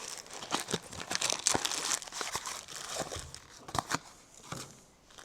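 Plastic packaging of a small parts kit crinkling and rustling as it is handled and opened, with scattered small clicks and knocks.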